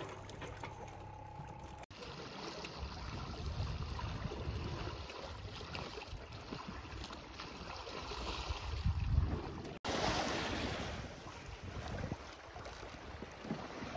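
Water sloshing and splashing around a boat on open water, with wind on the microphone. A faint steady hum runs through the first two seconds, and the sound breaks off abruptly twice, about two seconds in and near ten seconds, as one stretch of water noise gives way to the next.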